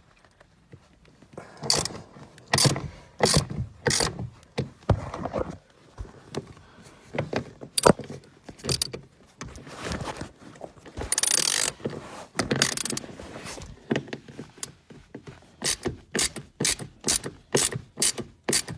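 Socket ratchet wrench clicking in bursts as a 10 mm seat bolt is worked loose, ending in a run of regular strokes about twice a second.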